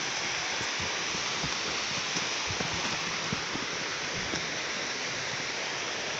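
Steady rush of running water from a small stream flowing over rocks, with a few soft low thumps.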